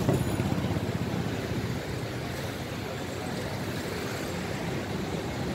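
City street traffic: cars and a motorcycle driving past through a pedestrian crossing, a steady wash of road noise that is a little louder in the first second or so.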